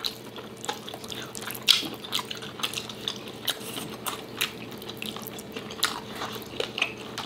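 Close-miked wet chewing and lip-smacking of two people eating with their hands, in irregular small clicks and smacks.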